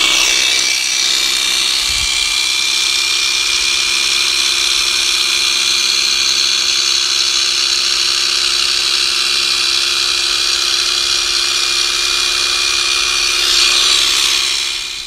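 Small handheld electric carpet trimmer running loudly and steadily with an even motor whine, being run over a freshly tufted rug to trim off stray yarn ends. It stops near the end.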